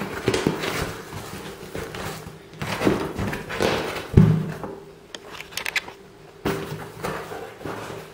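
Cardboard shipping box being opened by hand: flaps bending, scraping and rustling, with scattered clicks and a thump about four seconds in.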